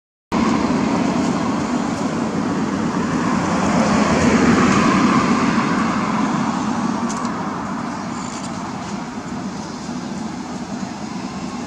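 Passing road vehicle: loud, steady road noise that swells to a peak about four to five seconds in, then slowly fades.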